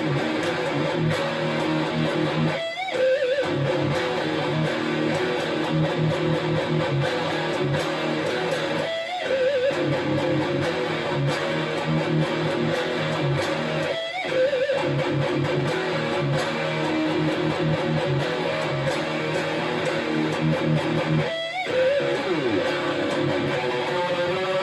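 Jackson JS22 DKA Dinky electric guitar played through a Crate Blue Voodoo 60 amp: continuous riffing with a repeating low pattern, broken by a short gap about every five to seven seconds.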